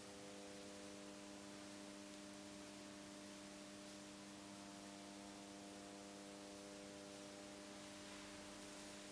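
Near silence: a faint, steady electrical hum of several even tones under a light hiss.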